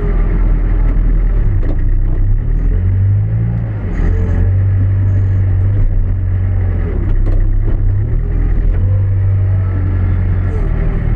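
New Holland B95B backhoe loader's four-cylinder diesel engine running as the machine drives, its note dipping and picking back up a couple of times, with a few light knocks.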